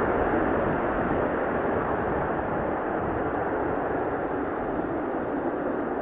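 Jet engines of a Boeing 737-800 (CFM56 turbofans) rushing as the airliner rolls out down the runway after landing, a steady roar that slowly fades, with wind buffeting the microphone.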